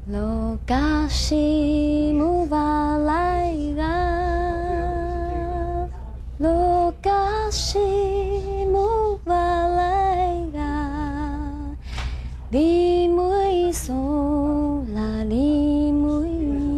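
A woman singing a slow melody in long, held notes with a wavering vibrato and slides from note to note, in phrases with short breaks between them, over a low steady hum.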